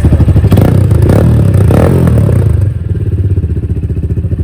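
Vento Rocketman 250 cc motorcycle engine running with the silencer insert removed from its stock exhaust, giving a louder, deeper exhaust note. It runs harder at first, then drops back to a quieter idle about two and a half seconds in.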